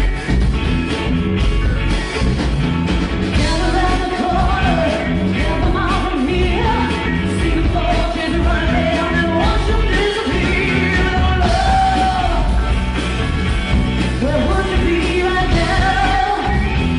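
Rock band playing, with a lead vocal coming in a few seconds in and singing in phrases over the steady band.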